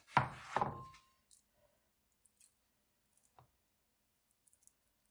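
A brief voice-like sound in the first second, then a metal spoon scooping thick yoghurt from a plastic tub into a ceramic bowl: a few faint clicks and taps, scattered and far apart.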